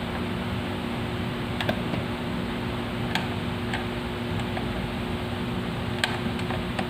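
A steady mechanical hum with two even tones, with a few sharp light clicks or taps scattered through it, the loudest about three and six seconds in.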